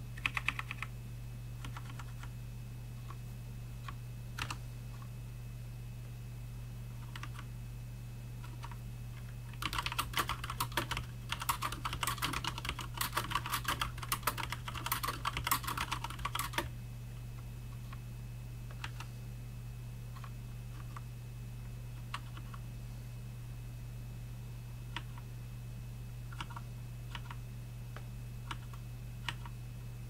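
Typing on a Cooler Master MasterKeys Pro L mechanical keyboard with linear Cherry MX Red switches and thin ABS keycaps. A few isolated key presses come first, then a fast run of typing from about ten to seventeen seconds in, then scattered single presses again, all over a steady low hum.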